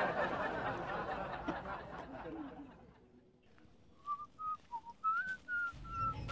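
A rough rustling noise for the first two or three seconds, then someone whistling a short tune of a few high notes that step up and down.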